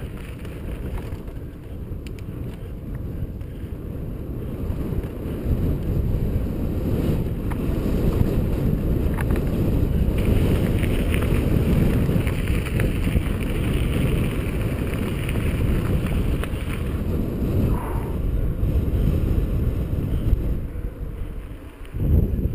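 Wind buffeting the microphone of a mountain bike's on-board camera, mixed with the rumble of the tyres rolling fast over dirt and gravel. It grows louder after about five seconds and dips briefly near the end.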